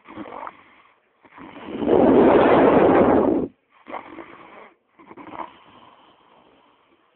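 A man snoring in his sleep: one loud, drawn-out snore of about two seconds, between shorter, quieter breaths.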